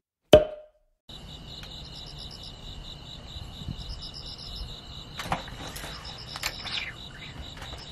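Crickets chirping in a steady, high, finely pulsed trill. A single sharp click comes just before them, then a moment of dead silence, and there are a few soft knocks partway through.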